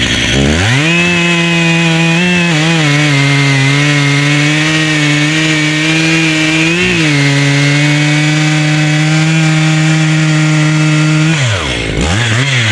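Stihl MS880 two-stroke chainsaw revved to full throttle and cutting through a large log, the engine holding a steady high pitch under load with a brief dip about seven seconds in. Near the end it drops back toward idle, then gives one short blip of throttle.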